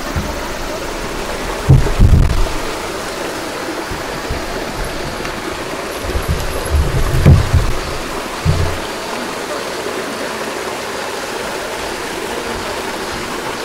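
Water rushing steadily through the stone water conduit of a stone arch aqueduct bridge, heard through an open inspection hole. Dull low thumps come around two seconds in and again between about six and nine seconds.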